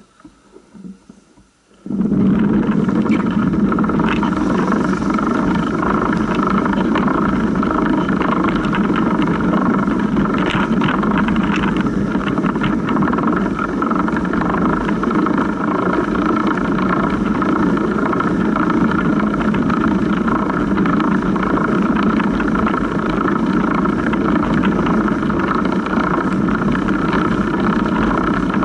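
Chain running over the idler pulley of a Surly Big Dummy long-tail cargo bike, with its tyres rolling through rutted snow, heard from right beside the drivetrain. After a quieter, patchy first two seconds it settles into a steady drone with scattered clicks.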